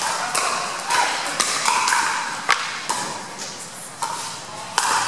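Pickleball paddles hitting a hard plastic ball in a quick exchange at the net: sharp pops about two a second for the first three seconds, then one more pop near the end. A murmur of voices in a large hall runs underneath.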